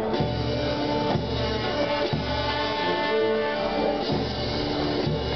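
Slow, solemn instrumental music with long held notes from a band or orchestra, over a low note or beat that comes about once a second.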